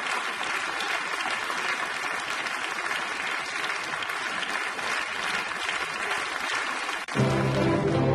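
Audience applauding steadily. About seven seconds in the clapping cuts off and music begins.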